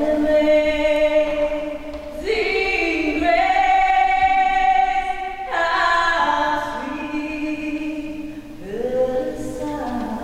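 Women's voices singing long, held notes a cappella in a church, the notes changing every second or two.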